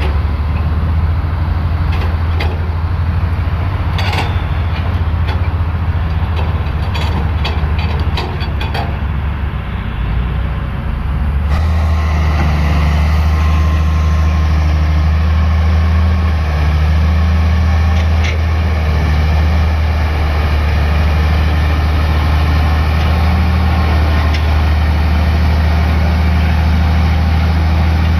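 Bulldozer's heavy diesel engine running with a steady, low drone. Sharp clicks and knocks come over it for the first several seconds; about a third of the way in the sound changes abruptly to a louder, even engine drone.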